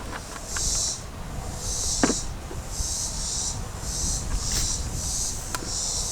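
Insects buzzing in high-pitched pulses, roughly one a second, over a low rumble, with a couple of sharp clicks.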